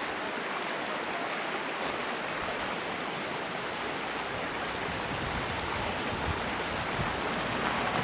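Steady rushing of flowing water, a constant even wash without breaks that grows slightly louder near the end.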